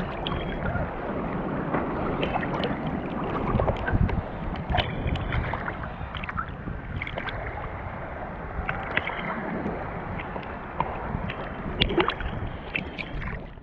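Water sloshing and splashing with a rough, muffled rush and scattered small splashes, picked up by an action camera at the water.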